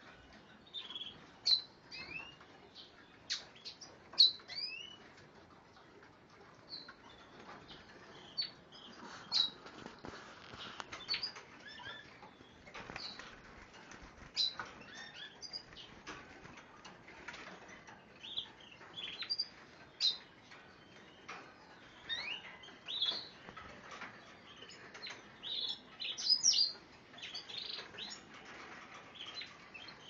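Several small cage birds, finches and canaries, chirping and calling together in short, high notes, some sweeping upward. Their wings flutter and tick against the cages.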